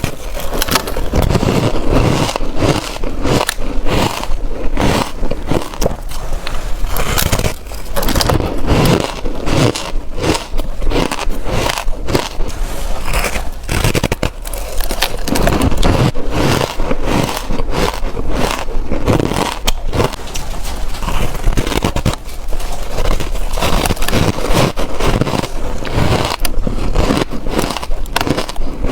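Close-miked crunching of reshaped, powdery ice being bitten and chewed: a dense, continuous run of crisp crunches.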